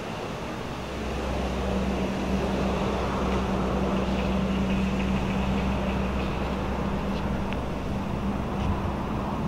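A motor vehicle's engine running steadily, a low even hum that grows louder about a second in and holds.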